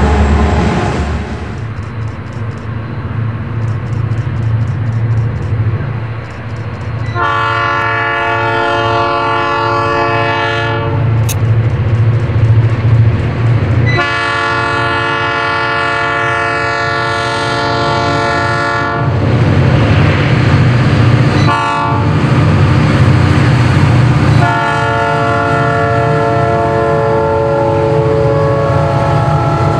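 Diesel locomotive air horn sounding three long, steady chord blasts over the low rumble of a passing train. The first blast starts about seven seconds in and the last near the end. Before the horn, the wheels click rapidly over the rails.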